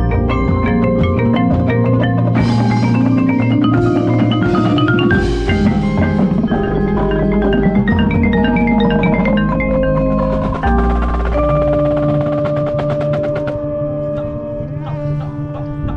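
Music: quick, bright mallet-percussion notes like a marimba or xylophone over a bass line. About two-thirds of the way in the bass drops out and a long held note sounds under sparser notes.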